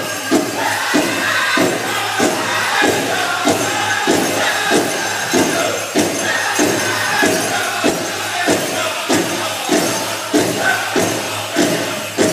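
Powwow drum group singing a chicken dance song: voices in high unison over a big drum struck in a steady beat, a little under two strokes a second. Dancers' bells jingle along, with crowd noise behind.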